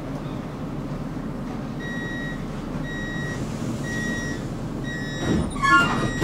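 Tram door warning signal: four evenly spaced high beeps, about one a second, over the low rumble of the tram. Near the end comes a clunk and a quick run of falling tones as the doors shut.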